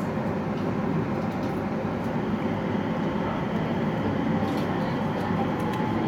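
A JR East 701-series electric train running along the track, heard from inside the driver's cab: a steady rumble of wheels on rail with a faint whine.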